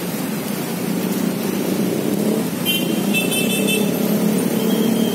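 Steady traffic noise of cars and motorcycles on a busy city road. About three seconds in there is a brief high-pitched tone.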